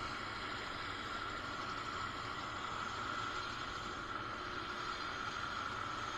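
Helicopter idling on the snow: a steady turbine whine over an even rush of noise, unchanging throughout.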